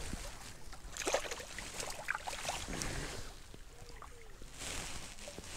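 Water lapping and splashing lightly at the shore's edge, with scattered clicks and rustles from a small caught fish and the fishing rod being handled.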